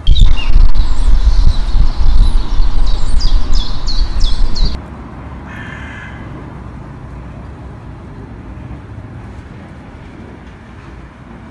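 Loud low rumble with a few short high squeaks over it, cutting off suddenly after about four and a half seconds, then a much quieter outdoor background with one short bird call soon after.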